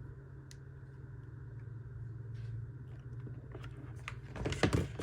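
Low steady hum with a few faint clicks, then, from over halfway through, a cluster of clicks and knocks as small nail-product containers and packaging are handled.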